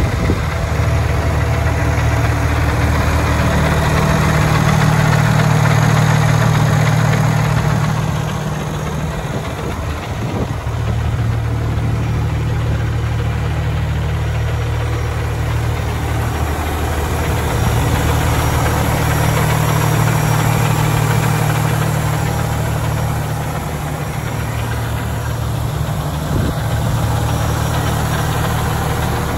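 A 2018 International LT semi-tractor's diesel engine idling steadily, a low even rumble that grows slightly louder and softer as the listening position changes around the truck.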